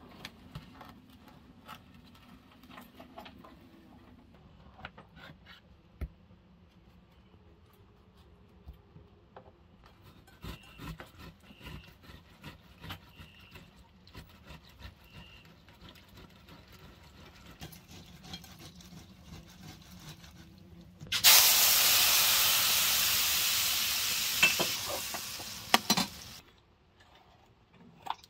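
Soft scraping and clicking of a tomato being rubbed over a metal box grater. About 21 seconds in, a loud steady hiss starts suddenly, eases a little over about five seconds, and then cuts off.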